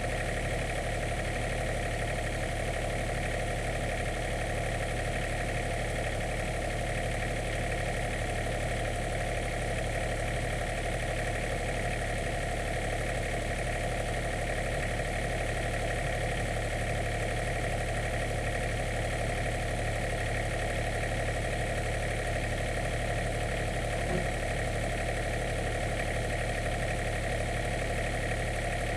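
An engine idling steadily at an even speed, with a faint click about 24 seconds in.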